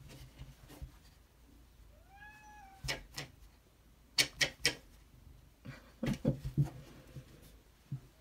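A cat meows once about two seconds in, a short call that rises and then falls in pitch. Several sharp knocks and taps, three close together about four seconds in and a cluster around six seconds, are the loudest sounds.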